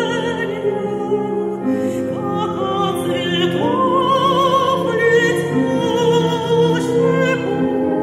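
A classical female voice singing a Russian art song with wide vibrato, accompanied by piano. About three and a half seconds in, she rises to a long held high note.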